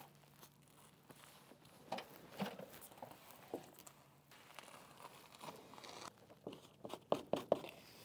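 SIGA Fentrim adhesive flashing tape being pulled and pressed along the head of a patio door frame: faint crinkling and tearing of the tape and its paper backing, with scattered light clicks that come thicker near the end.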